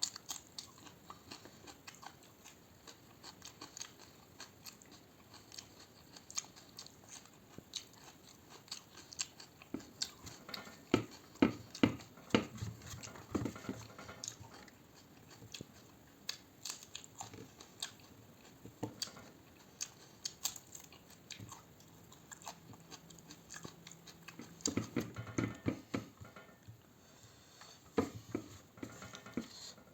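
A person eating: chewing and biting, with many irregular short smacks and clicks of the mouth. The sounds come thicker and louder in a couple of stretches.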